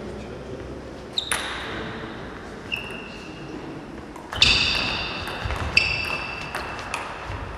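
Table tennis rally: a ping-pong ball clicking off bats and table. A couple of single hits come about a second in, then a quicker run of sharp clicks from about halfway, several with a short high ping, echoing in a large sports hall.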